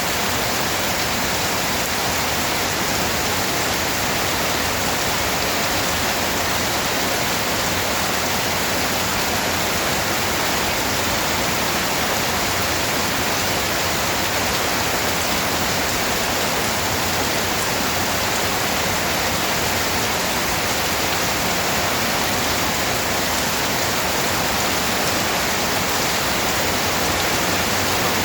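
Steady rain falling as an even, unbroken hiss, with no single drops standing out and no change in strength.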